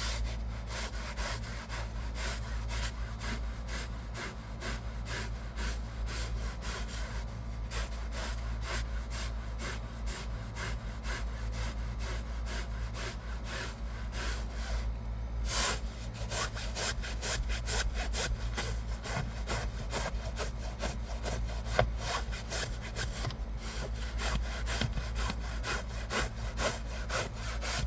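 Stiff hand brush scrubbing cloth car seat upholstery with rapid back-and-forth strokes, the bristles rasping on the fabric, over a steady low hum.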